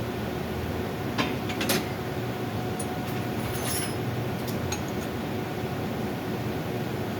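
Steady rumble and hiss of a running air handling unit blower, with a faint hum. Two sharp metallic clinks about a second and a half in, and a few light ticks later.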